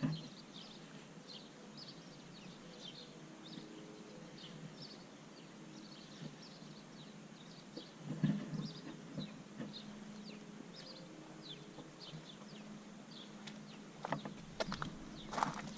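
A small bird chirping repeatedly: short, high, falling notes, two or three a second, over faint outdoor background noise. There is a brief bump about eight seconds in, and a few knocks and rustles near the end.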